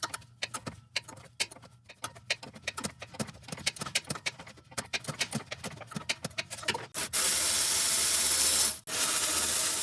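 A ratcheting wrench clicks in quick, uneven runs as an exhaust manifold bolt on a 5.7L HEMI is slowly worked loose. About seven seconds in, a loud, steady hiss starts, stops for a moment and then comes back.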